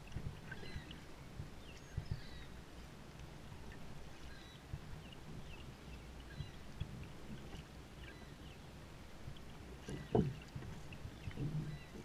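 Double-bladed kayak paddle strokes in calm water: blades dipping and splashing in turn, water dripping off them, with the sea kayak's hull moving through the water. One louder thump about ten seconds in.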